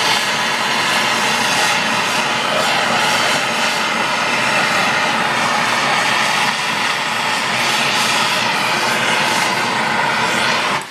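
MAPP gas hand torch flame burning, turned down low, with a steady hiss that cuts off abruptly at the very end.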